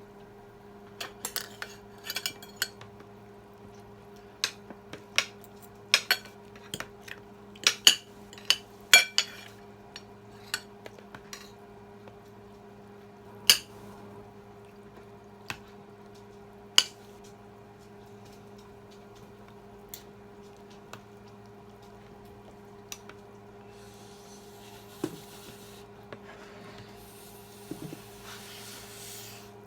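Spoon and fork clinking and scraping against a plate during a meal: a quick run of sharp clinks in the first half, then only an occasional clink. A steady low hum runs underneath, with a soft rustling hiss near the end.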